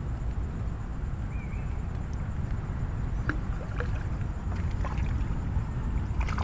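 Wind buffeting the microphone: a steady low rumble, with a few faint clicks about three seconds in and again near the end.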